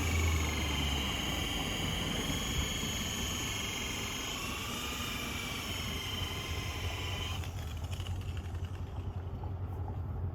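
Electric polisher spinning a buffing wheel, a steady motor whine that wavers slightly in pitch and cuts off about seven and a half seconds in, leaving a low hum.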